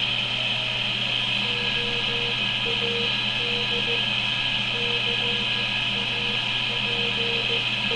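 Homebuilt superhet shortwave receiver with its BFO on, receiving slow Morse code (CW): a low beat tone keyed on and off in short and long dashes from about a second and a half in, over steady hiss and hum that the builder puts down to power-line and household wiring interference.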